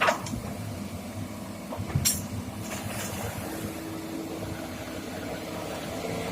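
Komatsu PC200 hydraulic excavator working, its diesel engine running steadily, with two sharp knocks, one at the start and one about two seconds in, followed by a few lighter ones.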